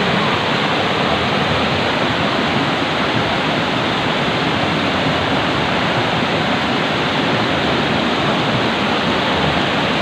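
Steady, loud rush of flowing water from a shallow, rocky stream near a waterfall.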